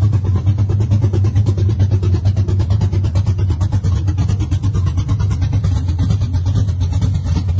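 Custom Chevrolet C10 pickup's engine running steadily at an even, low pitch with a fast pulsing exhaust beat.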